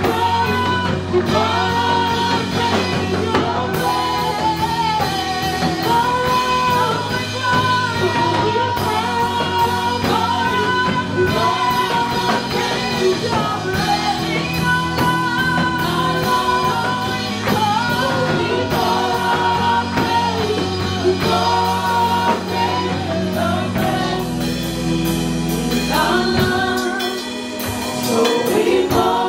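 Gospel praise song sung by a worship team of several singers on microphones, with live band accompaniment including keyboard, bass notes and a steady drum beat. The bass drops back briefly near the end.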